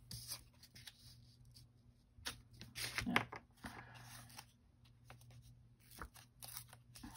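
Sheets of patterned paper and card being handled and shuffled on a cutting mat: light rustles and taps, busiest from about two to four seconds in.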